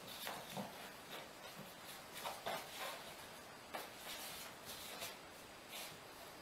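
Faint, irregular scuffs and light taps of footsteps on a laminate wood floor, from a small puppy's paws and a person's sandalled feet moving about.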